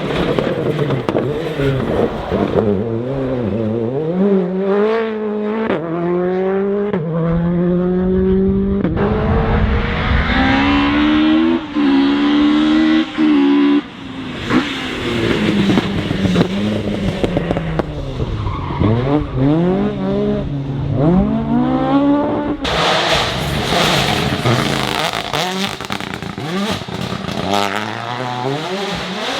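Rally car engines revving hard, pitch climbing and dropping again and again through gear changes. The sound changes abruptly about 23 seconds in.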